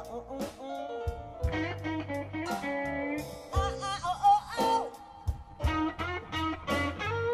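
A live blues band playing, with electric guitar lines bending in pitch over a bass line and drums.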